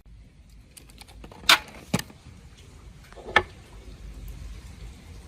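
Hand work on engine parts: three sharp knocks about a second and a half, two, and three and a half seconds in, with lighter clicks between them.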